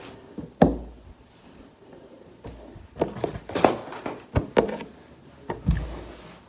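Handling noise from a baby blanket being folded: soft thumps and brief rustles of cloth, with a louder thump about half a second in, a cluster of rustles in the middle and another thump near the end.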